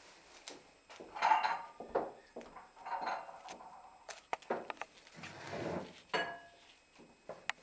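Plastic cling film pulled off its roll and wrapped around a tray: irregular crinkling and rustling of the film, with scattered light clicks and knocks as the tray is handled.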